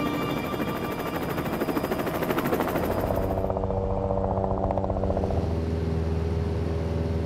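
Helicopter in flight: a fast, even rotor chop over a steady low engine drone. The chop fades after about five seconds, leaving the drone.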